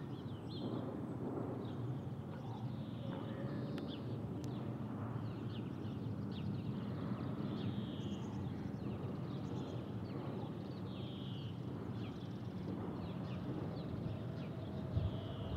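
Boeing 747-400 with its four turbofan engines passing high overhead at cruise altitude: a steady, distant low rumble. Birds chirp over it every few seconds.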